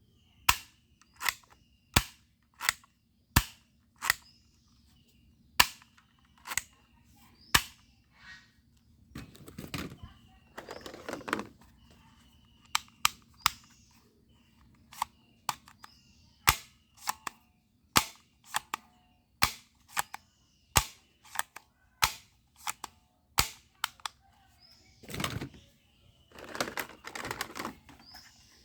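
Toy bead-shooting gun firing shot after shot: sharp snaps at an uneven pace, roughly one or two a second. Twice it gives way to a couple of seconds of rattling, plastic handling and reloading noise.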